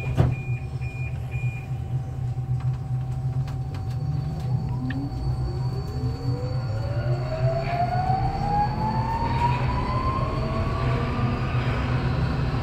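Budapest Metro M4 train (Alstom Metropolis) pulling away and accelerating in the tunnel: its traction motors whine in a tone that rises steadily in pitch from about four seconds in, over a steady low running rumble. A sharp clack right at the start and a few short beeps in the first second and a half.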